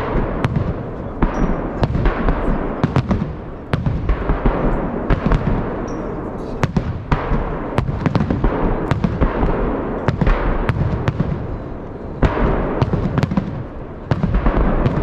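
Festive fireworks salute: shells bursting in rapid succession, many sharp bangs over a dense, continuous din of further bursts, with brief lulls about four, twelve and fourteen seconds in.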